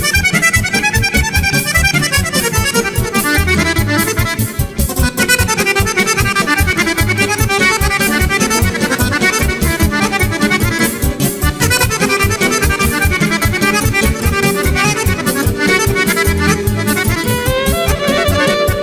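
Chromatic button accordion playing a fast kolo dance tune in rapid runs over a steady bass beat. Near the end a violin comes in with longer held notes.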